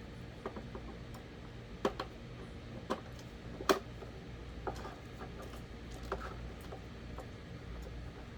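Scattered clicks and light knocks of an electric fan's plastic parts being handled and fitted together during repair, the loudest about three and a half seconds in, over a steady low hum.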